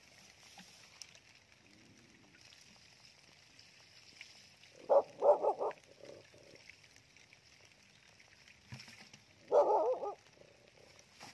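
Muddy water trickling steadily along a small field ditch, with an animal calling twice: a quick run of three or four calls about five seconds in, and one longer call near the end.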